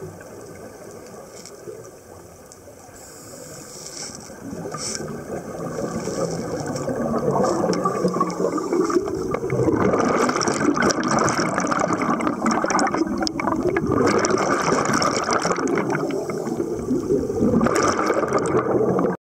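Underwater bubbling and gurgling of scuba divers' exhaled air bubbles rising past the microphone. It is faint at first, grows louder from about six seconds in, and stops abruptly near the end.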